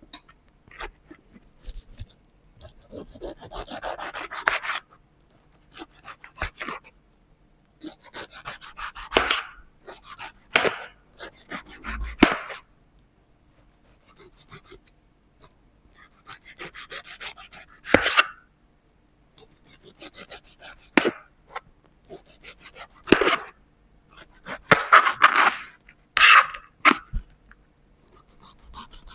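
Knife cutting through a pineapple's rough skin and crisp flesh in separate strokes every few seconds, each a crunchy, scraping burst, some ending in a sharp knock of the blade on the cutting board.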